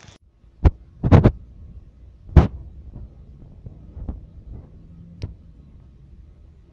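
Loud knocks and bumps of a phone being handled close to its microphone, a cluster of three just after the first. Fainter thuds follow, steps of someone walking on a street.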